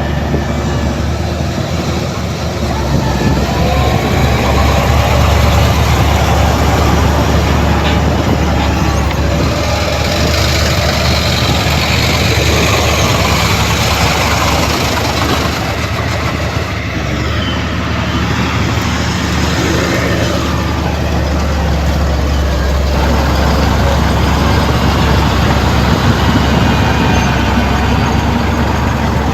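Heavy diesel earthmoving machinery running steadily with a deep engine hum, with a louder rushing, rattling stretch for several seconds around the middle.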